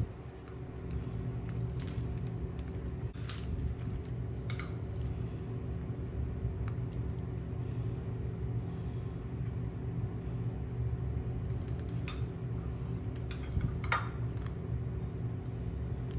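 Metal spoon clinking and scraping against a ceramic bowl while scooping melted chocolate: a few scattered light clinks, the clearest near the start and again around twelve to fourteen seconds in, over a steady low hum.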